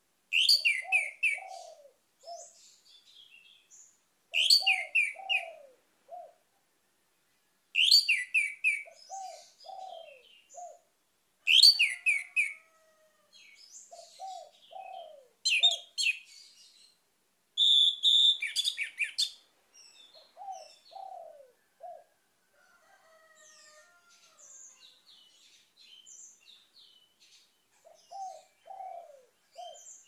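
Orange-headed thrush singing: loud, rapid song phrases of high, clear notes, about one every four seconds, each followed by a short run of lower notes; after about twenty seconds the song drops to softer, scattered twittering.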